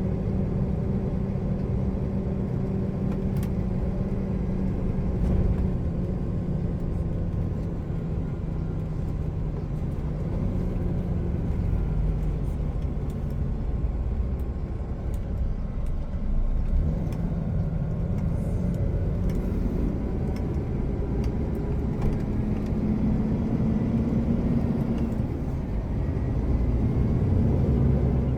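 Truck's diesel engine running under way with steady road and tyre noise; the engine note sags lower through the middle and climbs again near the end as the engine speeds up.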